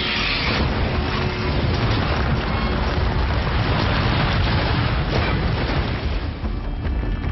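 Action-film sound mix: heavy booms and crashing destruction with a deep rumble, under a music score. The effects thin out near the end.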